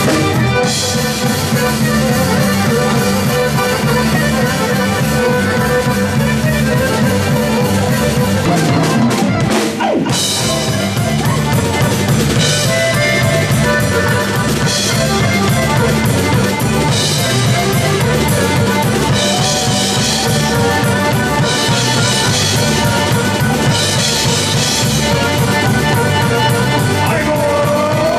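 A live band playing folk-dance music, with accordion over a drum kit. There is a short break about ten seconds in, and cymbals come and go in the second half.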